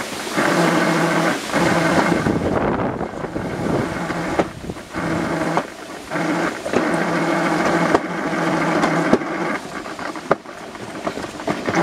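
Summer bobsled running down its stainless-steel trough: a rolling rumble with a droning hum that comes and goes in stretches of about a second, with wind on the microphone.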